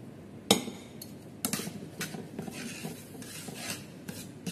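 Metal tongs and a metal ladle knocking and scraping against a metal pan and a bowl while spaghetti is worked in the pan. There is one sharp clank about half a second in, then a run of lighter clinks and scrapes.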